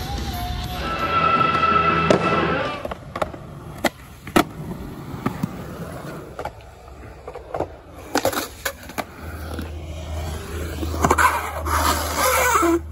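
Skateboard on concrete: sharp clacks of the board popping and landing, then the steady rumble of its wheels rolling and carving through a concrete bowl, cutting off at the end.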